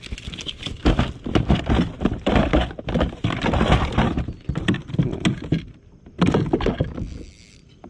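A trout thrashing in a landing net on a plastic kayak deck: a fast, irregular run of knocks and thumps, with a last burst about six seconds in.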